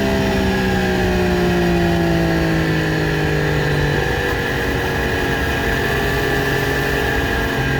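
Triumph Street Triple RS three-cylinder engine running on its stock exhaust, the revs falling slowly over the first few seconds and then holding steady. The engine note steps to a new pitch near the end.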